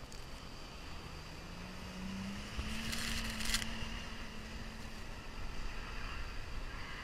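Mercedes GLE350 CDI's V6 diesel engine revving as the SUV slides through deep snow, its pitch rising and then holding steady. A short loud hiss comes about three seconds in.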